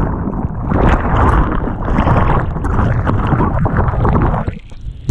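Churning whitewater of a breaking wave washing over a head-mounted GoPro Hero5, a loud rushing wash with heavy low rumble. Near the end the hiss drops away into a brief muffled rumble, then a sharp knock.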